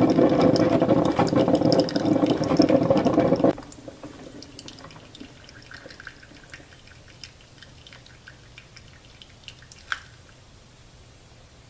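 Ninja Coffee Bar brewer running loudly as it pushes hot water through the grounds, cutting off suddenly about three and a half seconds in. Coffee then drips faintly from the brew basket onto ice in the glass, with one sharper click near ten seconds.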